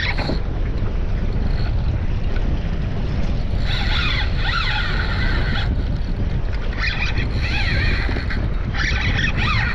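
Wind buffeting the microphone on a boat on open water, a steady low rumble and hiss. Three bursts of a high, wavering squeal come over it, each one to two seconds long, about four, seven and nine seconds in.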